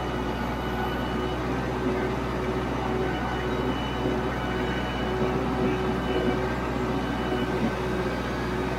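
Kubota MX5400 tractor's four-cylinder diesel engine running steadily under load as the tractor drives forward pushing a pile of dirt with its front loader bucket.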